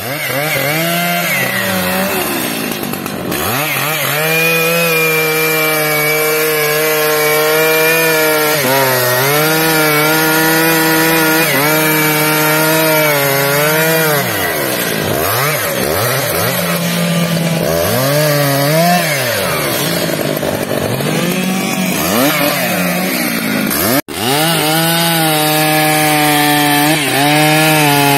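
Stihl MS 881 chainsaw, a 121.6 cc single-cylinder two-stroke, running near full throttle while cutting through a teak log. Its high engine note sags again and again as the chain loads up in the wood, then climbs back. The sound breaks off for an instant about two-thirds of the way through.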